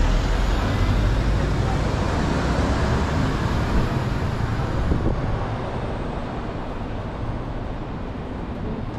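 City street traffic: a heavy vehicle's engine rumble and road noise, loudest at the start and slowly fading over the following seconds.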